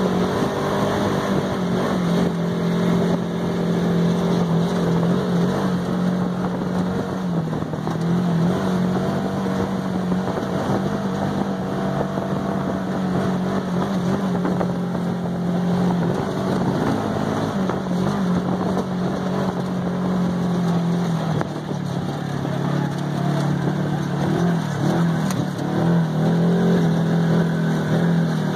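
Polaris RZR side-by-side's engine running steadily under way, heard from inside the open cab, along with the rumble of the ride. Its pitch dips and then recovers about three-quarters of the way through as the throttle changes.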